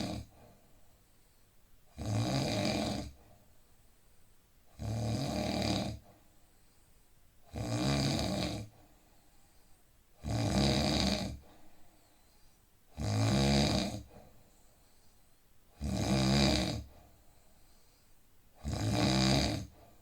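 A man snoring in deep sleep: a steady rhythm of snores about a second long, one every two to three seconds, with quiet breathing between them.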